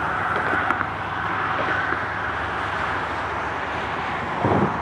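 Wilmington & Western 0-6-0 steam locomotive No. 58 working toward the listener: a steady hissing, rushing exhaust, with a louder low thump near the end.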